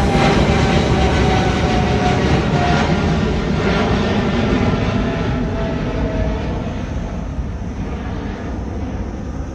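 Jet airliner's engines passing by: a steady rush with a whine that slowly falls in pitch, fading gradually as it moves away.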